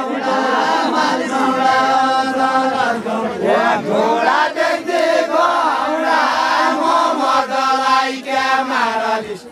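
A group of men singing a Deuda folk song together as they dance, in long phrases of held notes with a short break about three and a half seconds in.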